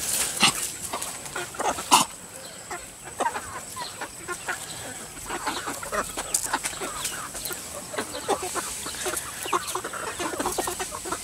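A flock of chickens clucking, with many short irregular clicks and a sharp snap about two seconds in. A faint steady high tone runs behind them.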